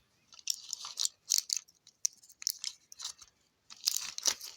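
Lozenge packaging handled close to the microphone: an irregular run of short, crisp crackles and clicks with brief gaps between them.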